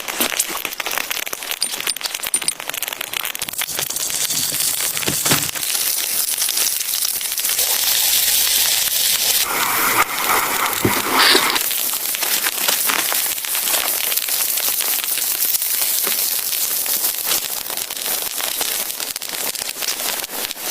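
Dense, steady crackling patter of driven snow and ice pellets hitting tent fabric, with a brief louder rustle about ten seconds in.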